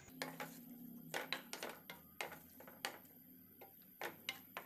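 Wooden spatula knocking and scraping against a nonstick pan while stirring sliced onions frying in oil: faint, irregular knocks a few times a second.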